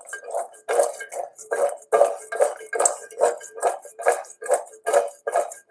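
Roasted chickpeas being tossed in a stainless steel mixing bowl, rattling and sliding against the metal in a regular rhythm of about two to three tosses a second, with the bowl ringing faintly. The chickpeas are dry and crunchy from roasting and are being coated with oil and spice.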